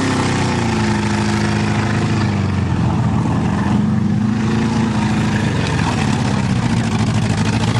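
A heavy bulldozer engine running steadily, its pitch slowly sagging and recovering as it works.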